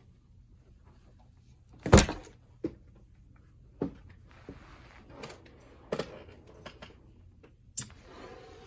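Knocks and thumps of gear bags and a life jacket being set down and moved around on a desk, the loudest about two seconds in, with fabric rustling near the end.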